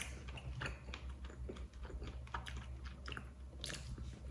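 A person chewing a mouthful of stir-fried pork and eggplant, with small irregular clicks of chopsticks picking at food in the bowl.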